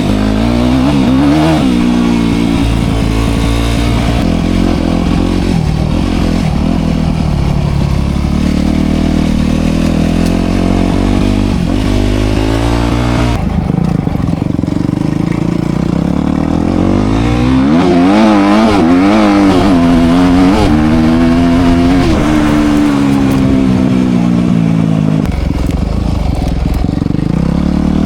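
Dirt bike engine being ridden, its pitch climbing and dropping again and again as the throttle is worked and gears are changed.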